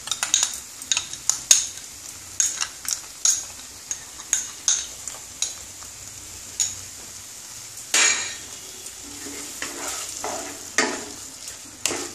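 A spoon tapping and scraping a glass bowl as a yogurt and nut-paste mixture is emptied into a hot non-stick pan of spiced oil, making many sharp clicks in the first few seconds. After that a flat spatula scrapes and stirs the mixture in the pan, with sizzling underneath.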